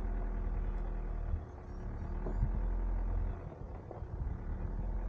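Hyundai Staria camper van's engine running at low speed, a steady low rumble picked up on the van's roof as it drives slowly over a rough dirt track, with a few faint knocks. The level dips briefly twice.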